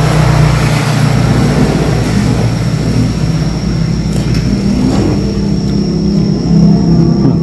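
A motor vehicle engine running, loud and steady, swelling up over the first half second.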